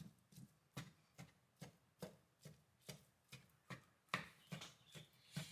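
Wooden spatula chopping and mashing raw lean ground beef in a cold nonstick frying pan: faint, soft taps about two or three a second, with no sizzle because the burner is not yet on.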